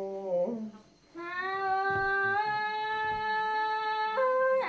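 Tai folk singing: a phrase ends on a low held note and breaks off, then after a short pause one long, steady note is held for about three seconds, stepping up in pitch near the end.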